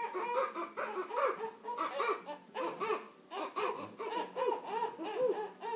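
Young children laughing: a continuous run of short, high-pitched laughs.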